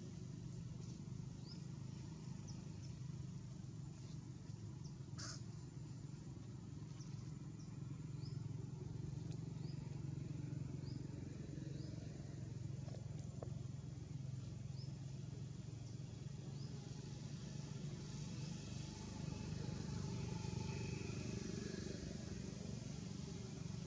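Outdoor ambience: a steady low rumble under a series of short, high, rising chirps that repeat about once a second, with a single sharp click about five seconds in.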